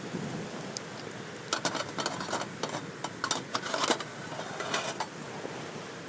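Wood campfire crackling over a steady rush, with a burst of quick snaps and crackles in the middle.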